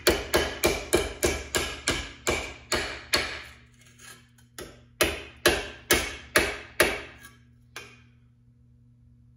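Hammer striking a thick metal grille trim strip held on a bench vise, straightening a bent edge. It starts with rapid, even blows, about four or five a second, then after a short pause goes on with slower blows about two a second, and the last blow comes near the end.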